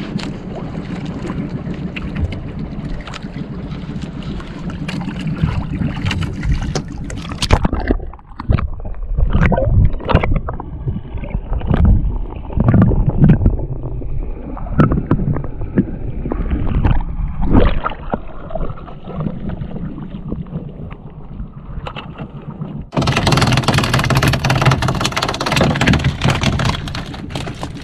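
Steady noise on the deck of a small outrigger fishing boat at sea. About 8 seconds in it turns to muffled underwater sound from a camera below the surface, with repeated low thuds. About 23 seconds in a loud, steady hiss returns on deck.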